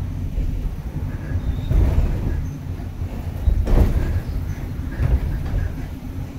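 Ikoma cable car (funicular) running downhill on its rails, heard from inside the car: a steady low rumble with two short clunks, about two seconds and about four seconds in.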